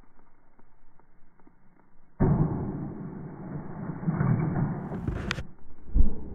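A water balloon bursts on gravel about two seconds in with a sudden thud and splash, followed by about three seconds of noise, then a sharp click. A single thud near the end.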